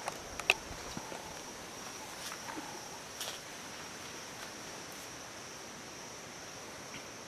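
Steady high-pitched drone of insects calling, with a few sharp clicks and light rustles over it, the loudest click about half a second in.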